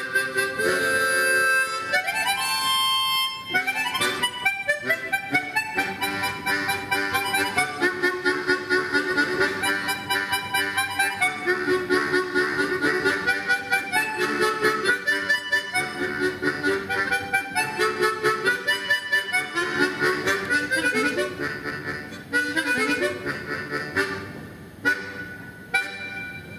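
Harmonica quartet playing a quick, pulsing ensemble piece, with melody over lower chords and bass notes. Near the end the playing thins to a few separate notes as the piece closes.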